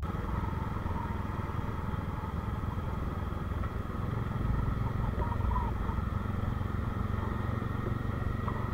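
Motorcycle riding along at a steady pace: a continuous rumble of engine and road noise with no sharp events.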